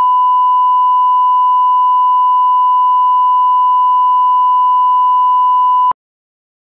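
A steady 1 kHz test tone, the line-up tone played with colour bars, which cuts off suddenly near the end, leaving silence.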